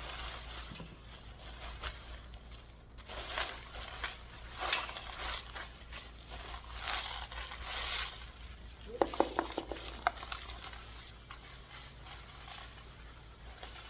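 Loose stainless steel screws and bolts being handled and tipped into storage bins: intermittent rustling and rattling, with a short run of sharp metallic clinks about nine seconds in.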